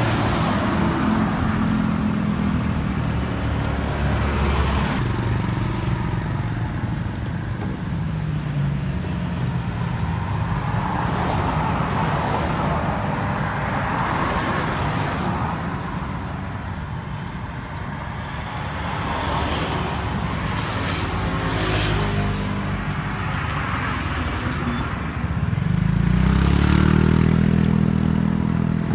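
Road traffic going by: car and motorbike engines passing one after another, each swelling and fading, the loudest passing near the end.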